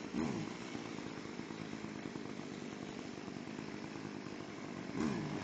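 Chainsaw running steadily, its engine speed briefly rising and falling just after the start and again near the end as the throttle is worked.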